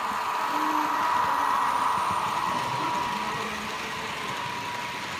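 HO-scale model electric locomotive (HAG Re 460) hauling a container train past on model railway track: a steady motor whine over the rolling rumble of metal wheels on the rails, swelling as the train comes close about a second in and then easing off.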